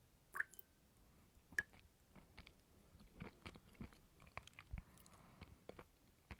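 Close-up chewing of coconut: irregular small clicks and crunches, with two sharper, louder bites about half a second and a second and a half in.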